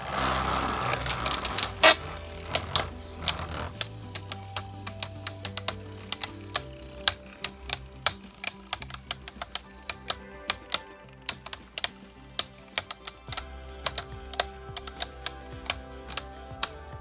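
Two custom 3D-printed Beyblade tops, Necromancer Ares and Dread Bahumat, whirring as they land in the stadium, then clashing over and over with sharp, irregular clacks, several a second.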